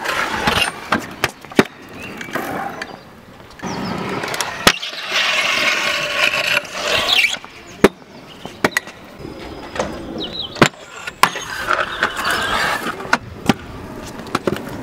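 Freestyle stunt scooters riding on concrete: wheels rolling and scraping, with a longer grinding scrape a few seconds in and again near the end, and many sharp clacks of wheels and decks landing and knocking against the concrete.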